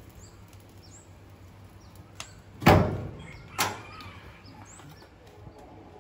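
Two sharp clunks of the smoking oven's door being handled, a loud one about two and a half seconds in and a lighter one about a second later, with a small click just before the first. Birds chirp faintly throughout.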